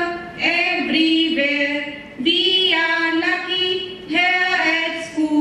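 Women singing into a microphone, with long held notes in phrases of a second or two and short breaks between them.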